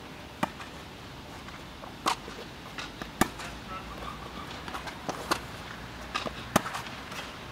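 Tennis rally on a hard court: a ball struck by rackets and bouncing, heard as about five sharp pops a second or so apart, with fainter footsteps and shoe scuffs between them.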